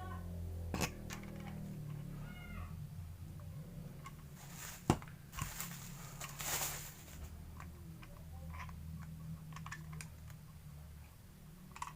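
Handling noises from a motorcycle mirror and its packaging: sharp clicks about one and five seconds in and a rustle shortly after, over a steady low hum. A short high call, like a cat's meow, sounds about two seconds in.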